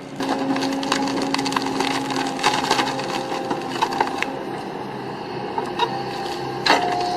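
A heavy machine running with a steady hum while wood cracks, snaps and splinters in a continual stream, with a sharper crack near the end as the machine's tone shifts higher.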